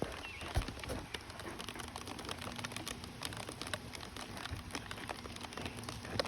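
Rain falling steadily in a storm, many small drops ticking close by over a constant hiss.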